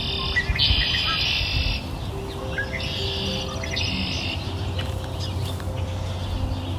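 Birds chirping, densest in two long bouts in the first few seconds, over soft sustained music notes and a low rumble: a birdsong-and-music background track.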